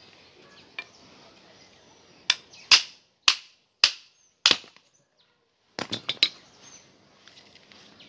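Sharp metal-on-metal knocks as a bicycle pedal and crank are worked with a metal tool: five separate strikes about half a second apart, then a quick cluster of clanks a little later.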